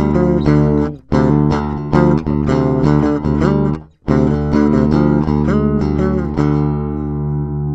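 Electric guitar playing picked notes over steady low bass notes. The sound cuts out briefly about one second and four seconds in. Near the end the last notes are left ringing.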